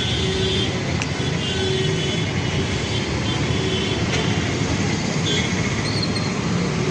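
Steady road traffic noise: a continuous rumble of running vehicles.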